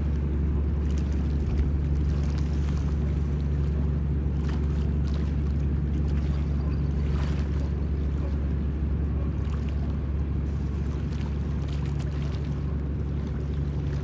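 Fast-flowing river water rushing steadily, with a deep, even rumble and a fainter hiss above it.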